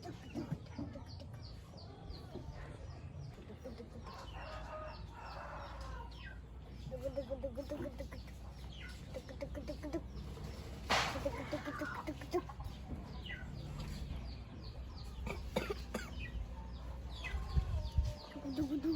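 Chickens clucking in repeated runs, with many short high downward chirps over a steady low hum, and one sharp knock about eleven seconds in.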